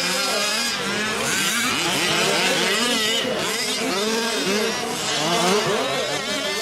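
Several 1/5-scale off-road RC trucks' small two-stroke gas engines racing together, their many pitches rising and falling over one another as the trucks rev up and back off around the track.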